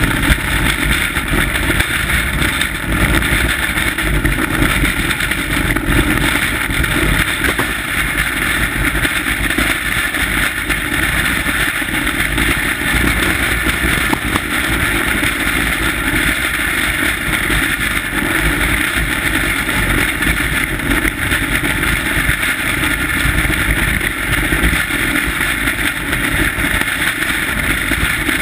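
Steel runners of a 1939 bobsleigh running at speed on the ice of a bob track: a steady, loud rumbling hiss that never lets up, with the rush of wind over the sled.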